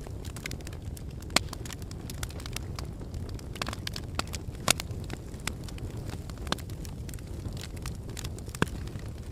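Wood fire in a fireplace crackling: scattered sharp pops and snaps over a steady low rumble of flames, with the loudest pops about a second in, near the middle and near the end.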